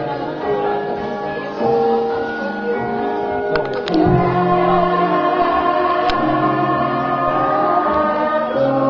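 Javanese gamelan playing a gending: bronze gongs and metallophones sounding long ringing notes that change every second or two, with voices singing along.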